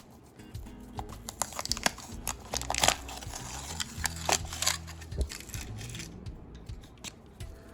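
Irregular crinkling and crackling handling noise, densest in the middle, over soft background music.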